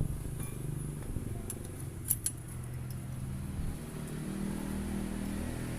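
A motorcycle engine running steadily, its pitch going up a little about four seconds in, with a few light metallic clinks of tools, the sharpest about two seconds in.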